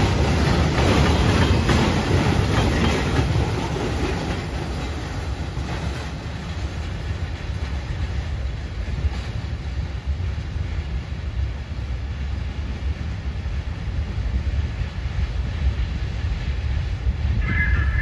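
Freight train's tank cars and hopper wagons rolling away on the rails, wheel-and-rail noise loud at first and fading over the first few seconds into a steady low rumble as the train recedes.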